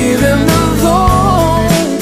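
Pop song playing: a melody line bending up and down in pitch over steady accompaniment, between sung lines.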